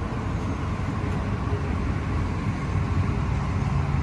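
A steady low rumble of outdoor background noise, with no single sound standing out.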